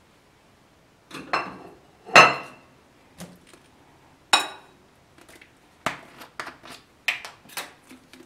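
Kitchenware knocking and clinking: a plate being set down and a metal wire whisk tapping against a glass mixing bowl. A few separate knocks, the loudest about two seconds in, then lighter taps and clinks in the second half.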